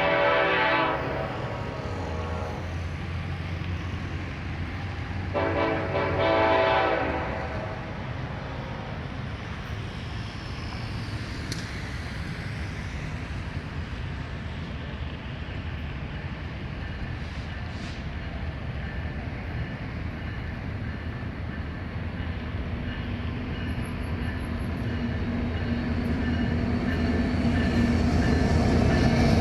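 Diesel freight locomotive's air horn sounding twice: a blast that ends about a second in, then a longer one a few seconds later. Between and after the blasts, the low rumble of the approaching train grows steadily louder toward the end.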